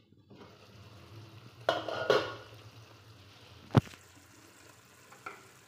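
Potato and radish-pod curry sizzling quietly in a kadhai as its glass lid is lifted off, with a brief rattle about two seconds in and one sharp clink near four seconds.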